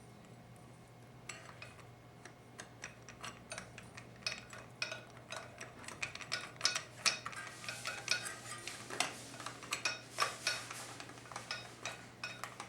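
Metal parts of a 4L60E transmission's clutch assembly clinking and rattling against each other as they are handled and turned to line up the clutch plates. The clinks start about a second in and come faster and more often toward the end.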